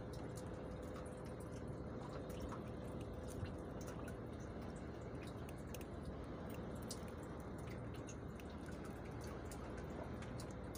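Faint steady wash of sea water around a small boat, with scattered light drips and ticks and a faint steady hum.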